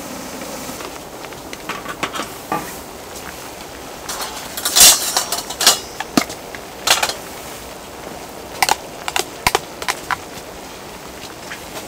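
Aluminium pot lid lifted off a cast-iron cauldron-lid pan with metal knocks and clatter about four to five seconds in, then the pork and kimchi stew bubbling with scattered sharp pops and crackles.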